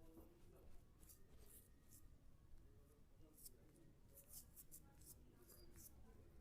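Faint short scratchy strokes of a razor scraping through beard stubble, a few about a second in and a quicker run of them from about three and a half to six seconds in.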